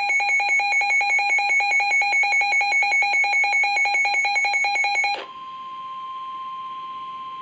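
Weather radio alert: a loud electronic alarm pulsing rapidly for about five seconds, then cutting suddenly to a single steady tone, the NOAA Weather Radio 1050 Hz warning alarm tone that signals a warning is about to be broadcast.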